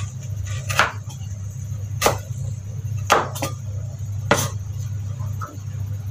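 Cleaver chopping through slices of root spice on a wooden cutting board: about five sharp knocks, two of them in quick succession about halfway through. A steady low hum sits underneath.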